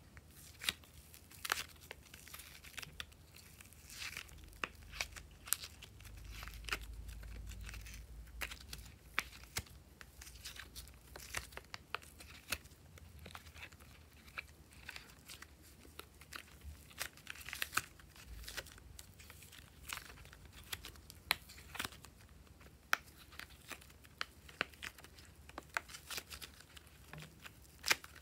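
Glossy slime being kneaded and stretched by hand, giving off irregular sticky clicks, pops and crackles, several a second.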